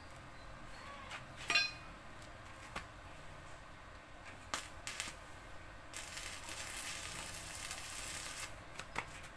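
Stick-welding arc crackling and hissing steadily for about two and a half seconds, starting about six seconds in, on the steel frame of a tricycle sidecar. Before it come a few sharp metallic clicks and taps of the electrode against the metal, one with a brief ring.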